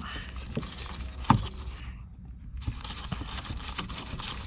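Light handling noises: scattered small clicks and one sharp tap about a second in, over a low background hiss, with a brief drop to near silence around the middle.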